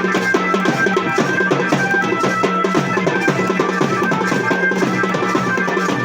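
Garhwali wedding band playing dance music: fast, driving drumming, with a held melody line over it.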